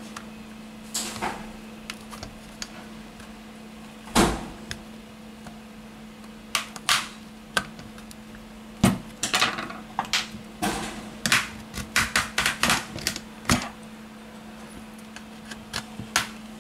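Scattered clicks, taps and short scrapes of a small screwdriver and fingers working at the edge of a Lenovo Yoga Tab 3 10 tablet's casing during disassembly, busiest in the second half, over a faint steady hum.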